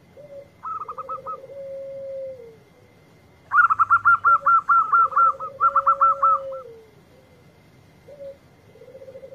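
Caged zebra dove (perkutut) cooing its song three times: a short note, then a long trilled coo that falls away at the end. Over the first two songs come louder, rapid runs of higher chirping notes, about eight a second.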